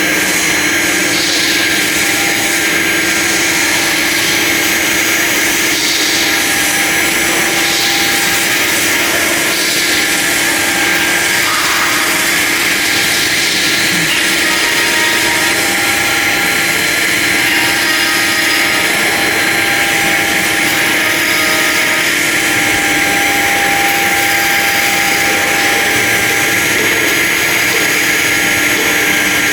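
CNC router machine running: a steady, loud machine whine with a lower hum underneath, unchanging throughout.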